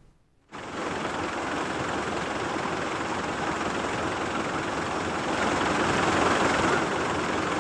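Steady rush of floodwater from a swollen stream pouring over a road causeway, starting about half a second in and swelling slightly near the end.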